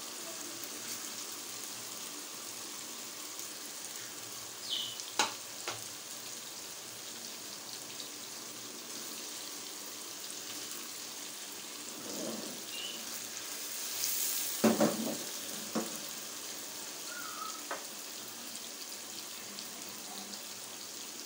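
Mutton koftas sizzling steadily as they fry directly in oily masala in a wok. A few sharp knocks come about five seconds in and again near fifteen seconds, as the koftas are moved in the pan.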